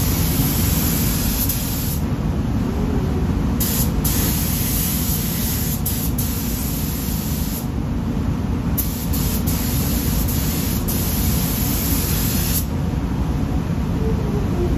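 Top-cup spray gun spraying pearl white paint onto a car bumper. The air hiss comes in passes of about two to four seconds, with short pauses between them, over a steady low rumble.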